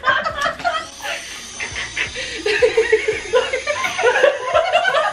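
People laughing, a woman's laugh in quick repeated bursts, growing fuller about halfway through.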